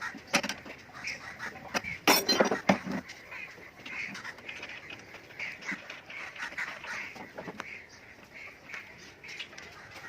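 Birds calling over and over in short calls. A burst of knocks and clatter about two seconds in is the loudest sound.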